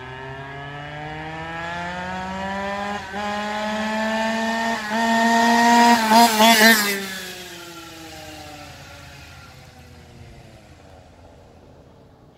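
Small two-stroke engine of a Goped go-kart buzzing as it approaches at speed, climbing in pitch and loudness. It passes close by about six to seven seconds in, then drops in pitch and fades as it drives away.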